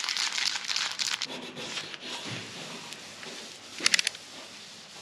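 Aerosol can of two-part epoxy primer being shaken hard to mix it: a dense rattle with the crinkle of a plastic bag over the hand, fading after about two seconds. Quieter rustling follows, with a quick run of sharp clicks about four seconds in.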